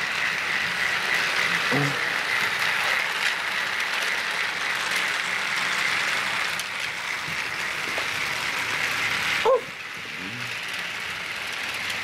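Several battery-powered TrackMaster toy trains running together on plastic track: a steady whir of small electric motors and gears with wheels rattling over the rails. There is a brief sharp sound about nine and a half seconds in, after which the running is quieter.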